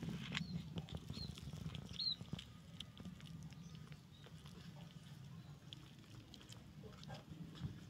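Young kittens shuffling and scrabbling over one another on a cloth in a plastic tub: soft pattering with small clicks and a few short, high chirps in the first half.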